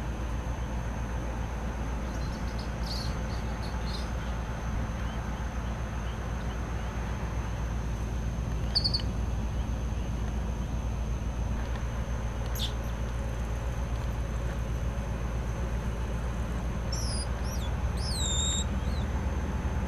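A few short, high chirping animal calls scattered over a steady low rumble, ending with a couple of downward-sliding calls near the end.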